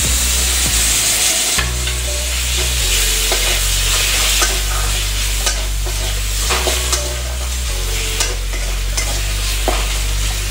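Chopped tomatoes sizzling in hot oil and spiced masala in an aluminium kadai. A metal spatula stirs them with repeated scrapes and clicks against the pan.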